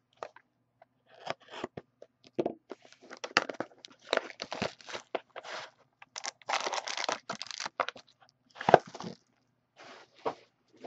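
Shrink wrap and the seal of a sealed Upper Deck Ultimate Collection hockey card box being slit and torn open, then the packaging crinkling as the box is pulled apart. It comes as a run of irregular scratchy rustles with a couple of short pauses.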